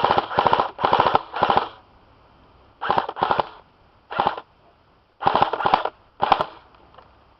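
Airsoft electric guns firing short full-auto bursts: a rapid mechanical rattle, about ten bursts in clusters, four in quick succession at the start, then pairs and single bursts with short pauses.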